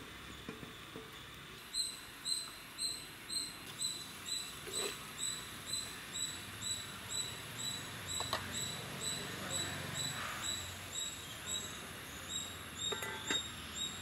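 Rhythmic high-pitched chirping from a small animal in the surroundings, about two chirps a second, starting about two seconds in and going on steadily. A few light clinks of pots being handled come in between.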